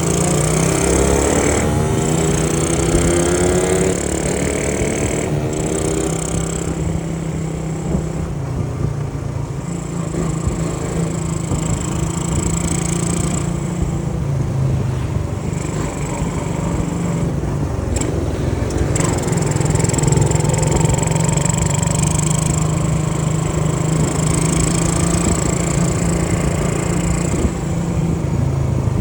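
Honda C70's tuned single-cylinder four-stroke engine running under way. Its pitch rises as it revs up near the start and again about two-thirds through.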